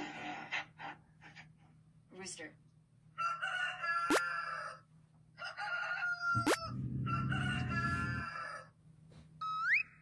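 Recorded rooster crowing three times in a row, played back through a speaker.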